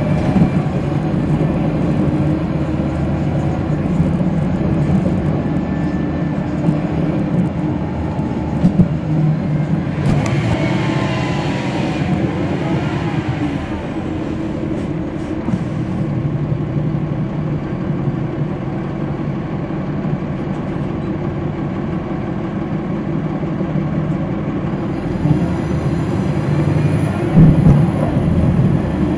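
Cummins ISL9 diesel engine of a NABI 40-SFW transit bus running, heard inside the cabin at the rear, with its pitch rising and falling in places as the bus drives. There are a couple of short knocks, the loudest near the end.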